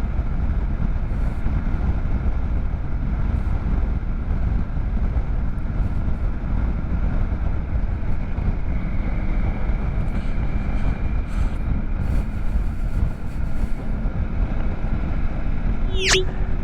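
Motorcycle riding at steady speed: wind rushing over the microphone with the engine's hum underneath. A brief falling whistle near the end.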